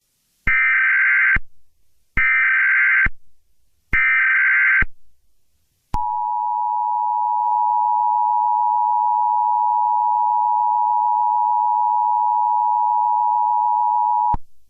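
Emergency Alert System broadcast header: three short bursts of screeching data tones about a second each, then the two-tone EAS attention signal, a steady, harsh dual tone held for about eight seconds that cuts off sharply. It signals that an emergency alert message is about to be read.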